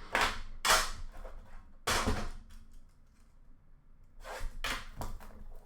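Rustling and knocking from hockey card packs and boxes being handled and opened: several short bursts, with a quieter lull in the middle.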